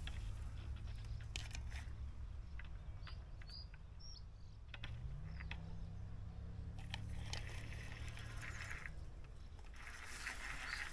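Quiet riverbank ambience: a low steady hum that steps up slightly in pitch about five seconds in, a few short faint bird chirps in the first few seconds, and soft rustling later on.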